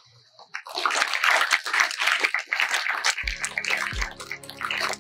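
A crowd of schoolchildren clapping in applause, starting about half a second in. Background music with low, held notes comes in about three seconds in.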